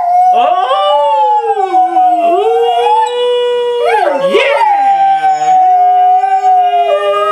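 Australian cattle dog howling in long, held notes that slide and waver in pitch, with a short break about four seconds in, singing along to a harmonica played at the same time.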